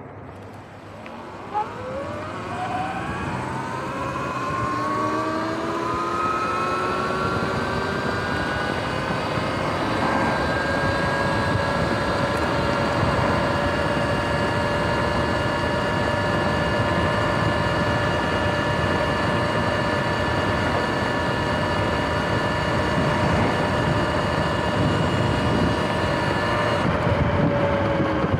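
Sur-Ron X electric dirt bike's motor and chain drive whining, the whine rising in pitch as it pulls away and then holding steady at cruising speed, over wind and tyre noise. The pitch dips near the end as it slows. It runs on a newly replaced chain and sprockets.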